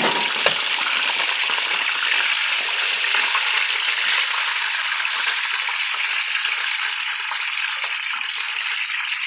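Food sizzling steadily in hot oil in a frying pan, with a single sharp tap about half a second in.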